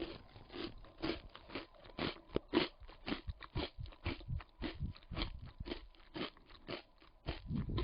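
Close-up chewing of crunchy chocolate almond granola: a steady run of dry, sharp crunches, about three a second, with a heavier, deeper crunch near the end.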